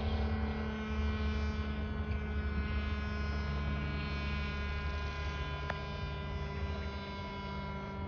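Municipal motor siren sounding the daily noon signal, holding a steady, drawn-out tone with many overtones.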